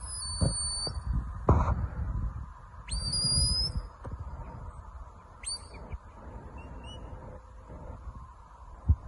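Shepherd's whistle commands to a working sheepdog: short high whistled notes, each sweeping up and then held, the longest about three seconds in and shorter ones around five and seven seconds in. Wind buffets the microphone underneath.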